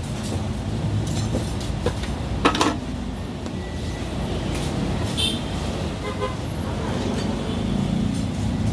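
Steady rumble of passing road traffic, with a few sharp metallic clicks and brief rings, one louder click about two and a half seconds in.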